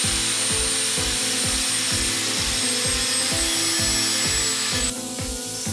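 Angle grinder with a cutting disc cutting through a steel bar: a high whine over a harsh hiss that drops away about five seconds in. Background music with a steady beat plays under it.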